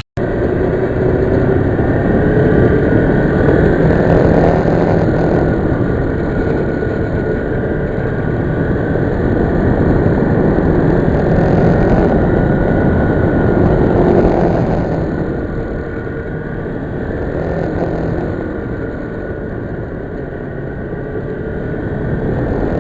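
A 650 motorcycle being ridden, its engine running under a heavy rush of wind on the microphone. The sound swells twice and eases off for a while before building again near the end.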